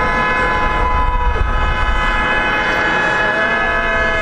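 A long, steady horn blast held for about six seconds, starting and stopping abruptly, over a low rumble.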